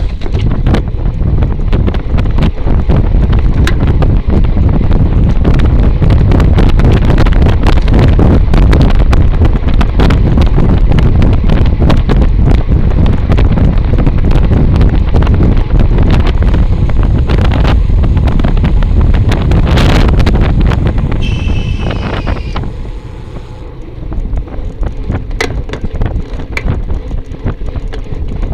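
Heavy wind buffeting the microphone of a bicycle-mounted camera during a ride, with road rumble and rattling clicks. About three-quarters of the way through there is a short, high, slightly falling squeal, and then the wind noise drops off as the bike slows.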